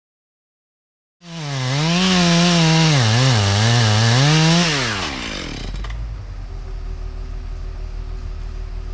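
Two-stroke chainsaw at full throttle, its pitch dipping and recovering under load as it cuts, then the throttle released about four seconds in and the engine dropping to a low idle. Silent for about the first second.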